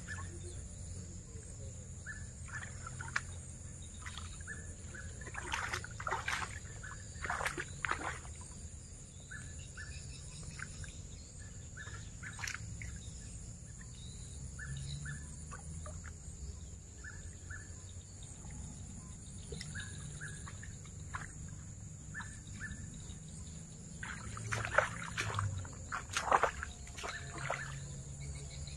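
Hands splashing and sloshing in shallow muddy water while grabbing for fish, in two bursts of several sharp splashes, one after about six seconds and one near the end. Between them a bird chirps in short repeated calls, over a steady high-pitched whine.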